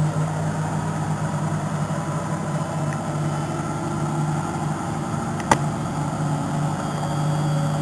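Neff front-loading washing machine running a spin cycle at about 1000 rpm: a steady motor-and-drum hum with a low drone and fainter whining tones above it. A single sharp click comes about five and a half seconds in.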